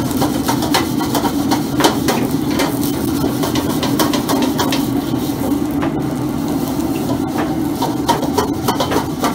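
A metal wok being scrubbed out by hand, with many irregular scrapes and knocks, over the steady noise of a commercial wok range running.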